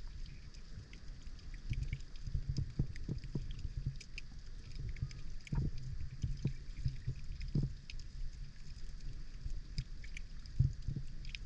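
Muffled underwater sound picked up by a camera in its waterproof housing: a low rumble of moving water with irregular soft thumps, and many faint scattered clicks throughout.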